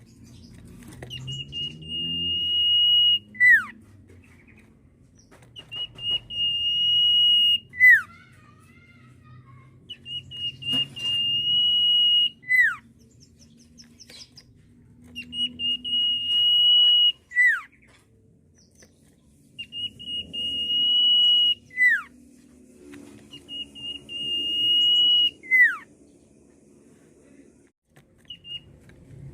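Common iora (sirtu) whistling: six long, steady high whistles, each swelling in loudness for about two seconds and ending in a quick falling note, repeated every four to five seconds.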